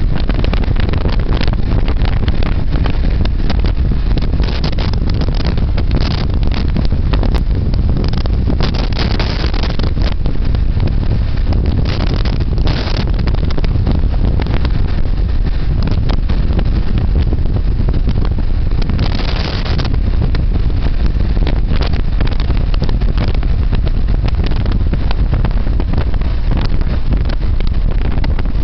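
Wind noise on the microphone of a motorcycle ridden at road speed, a steady low rumble with the bike's engine and road noise mixed in, and short spells of louder hiss, the longest about 19 seconds in.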